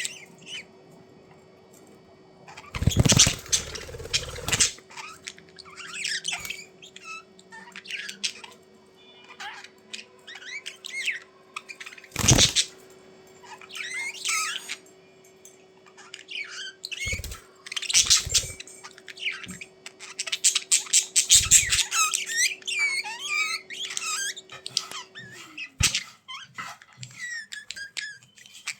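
Budgerigars chattering and warbling in quick, wavering chirps. A couple of loud noisy bursts come about three seconds in and again near the middle, along with a few soft low thumps.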